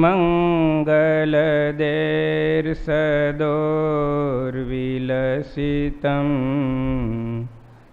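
A man chanting a Sanskrit mangal shloka, an auspicious invocation verse, to a slow melody in long held notes, trailing off near the end.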